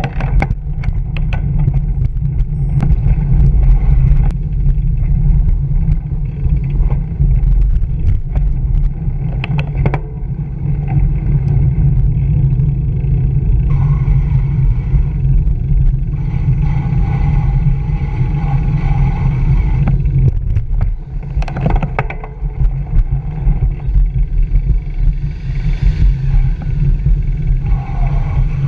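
Wind buffeting and road rumble on a bicycle's handlebar-mounted camera while riding through city streets, with frequent sharp knocks and rattles from bumps in the pavement. A held tone sounds for a few seconds about two-thirds of the way in.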